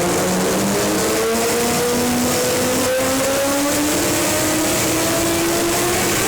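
Yamaha R6 sport bike's inline-four engine running, its revs climbing slowly and falling back near the end, with a short break in the sound about three seconds in. The owner says the engine is misfiring.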